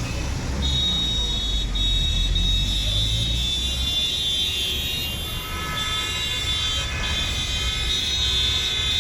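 Road traffic: motor vehicles passing with a steady low rumble, overlaid by sustained high-pitched tones that change pitch about halfway through.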